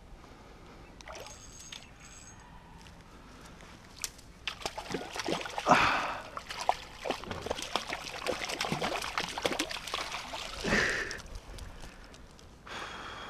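Hooked trout thrashing and splashing at the water's surface as it is scooped into a landing net, with water sloshing. The splashing starts about four seconds in and is loudest around six and eleven seconds in.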